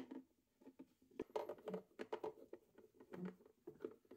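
Faint, irregular clicks and scrapes of hands fitting a plastic battery holder into a plastic battery compartment and turning in a screw with a hand screwdriver, with one sharper click at the start.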